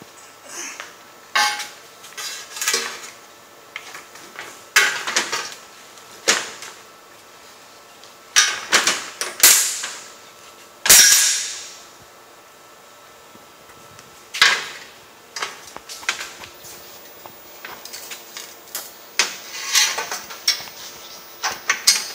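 Metal clanks and clicks at irregular spacing as the hot saw's expansion pipe and its mounting hardware are handled and fitted on the workbench. The loudest clank, about eleven seconds in, rings on for about a second.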